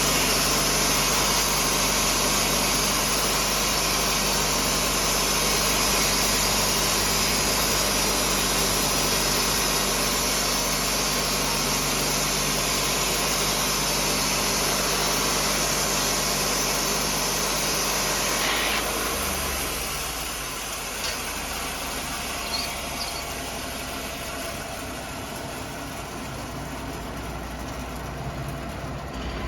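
Sawmill engine running steadily under load with a strong hiss. About two-thirds of the way through the level drops and the engine runs on more quietly, as it does when a cut ends.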